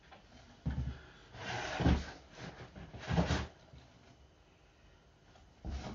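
Rummaging in a cardboard delivery box to unpack beer bottles: bursts of rustling with a few dull knocks, the loudest near the end.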